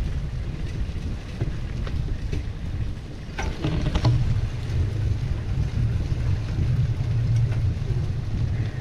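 Wind buffeting the microphone of a bicycle-mounted camera, over the rumble and rattle of the bike rolling along a gravel path. A short, sharper sound stands out about three and a half seconds in.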